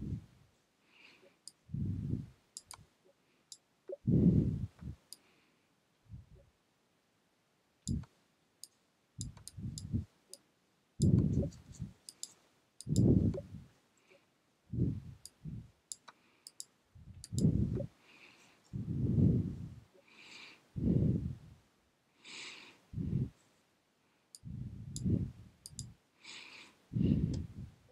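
Computer mouse clicking in quick sharp clicks, with low muffled puffs of breath on a close microphone every second or two between them.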